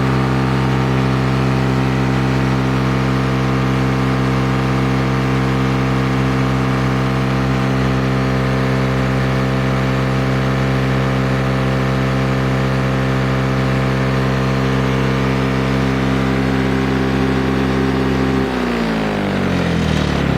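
A freshly rebuilt 1972 Lawn-Boy 7081 bricktop mower's two-stroke engine running steadily at a constant speed. Near the end its pitch falls away as the engine slows down.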